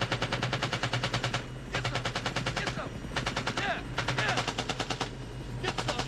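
Airsoft guns firing on full auto, rapid trains of about fifteen shots a second in several bursts of one to two seconds each, with short pauses between bursts.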